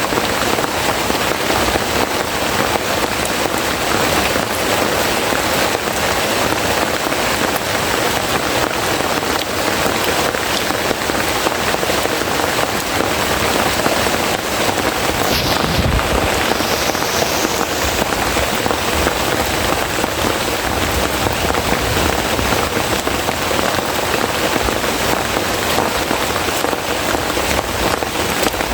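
Heavy rain falling steadily, a dense even hiss of drops, with one brief low thump about halfway through.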